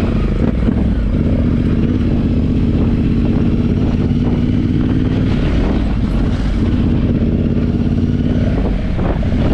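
Yamaha Ténéré 700's parallel-twin engine running at fairly steady revs while riding, easing off briefly twice.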